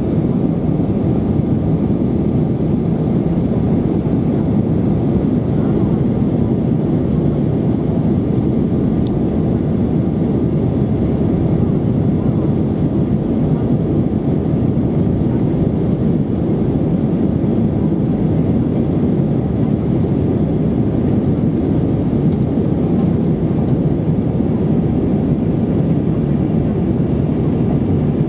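Steady cabin noise of an Airbus A320 in flight, heard from a window seat: the even, low rush of the jet engines and the airflow over the fuselage, unchanging throughout.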